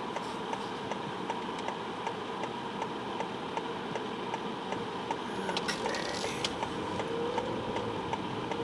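Car turn-signal relay ticking at an even pace, about two to three clicks a second, over the steady hum of the car's engine and road noise inside the cabin. A faint rising tone comes in near the end.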